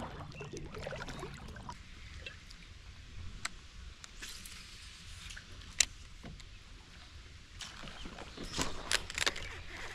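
A kayak on a calm river: faint water sounds with occasional light knocks and clicks, one sharper about six seconds in and several together near the end.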